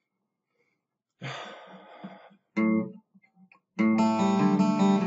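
Steel-string acoustic guitar: a scratchy muted strum and a short chord, then from about four seconds in full chords strummed and left ringing.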